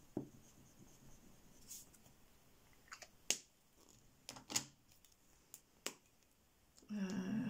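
Gel crayon rubbed briefly across paper to lay down a swatch, followed by a few small sharp clicks and taps as the crayons are handled and set down.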